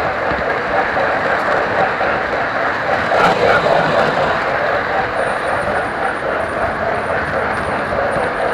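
Model electric train's motor and wheels running steadily along the track, heard close up from a car coupled behind the locomotive's tender. The sound gets briefly louder about three seconds in.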